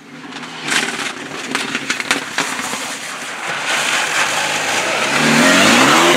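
Renault Mégane RS rally car approaching at speed. Several sharp exhaust pops come in the first two seconds or so. Near the end the engine gets louder and rises in pitch as it accelerates past close by.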